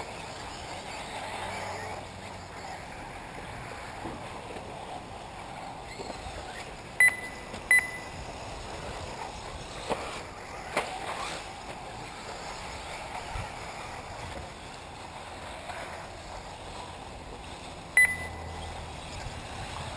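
1/8-scale electric RC off-road buggies running on a dirt track under a steady background of open-air noise. Short high electronic beeps sound twice in quick succession about seven seconds in and once more near the end, and two sharp clacks come around the middle.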